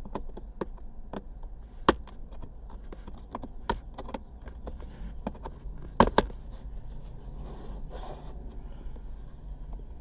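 Plastic console trim being cleaned up with end cutting pliers: light scraping and clicking, with two sharp snaps about two seconds and six seconds in.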